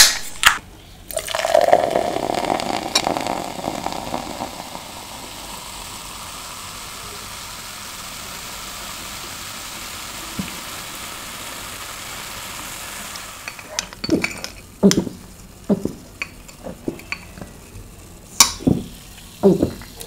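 A can of Coke cracks open with a sharp click, then is poured into a tall glass: a gurgling pour turning into a steady fizzing hiss of carbonation that lasts about twelve seconds. Light clicks and knocks follow in the last few seconds as the glass and straw are handled.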